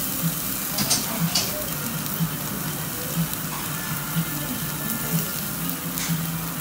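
Marinated beef kalbi sizzling on a slotted tabletop grill over open flame, a steady hiss. Metal tongs click a couple of times about a second in and again near the end as the meat is turned.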